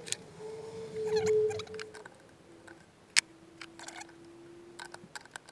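Spanner clinking and scraping on the tool holder of a small metalworking lathe as it is worked loose: a louder rattling scrape about a second in, then a series of sharp metal clicks. A faint steady hum runs underneath and drops in pitch about halfway through.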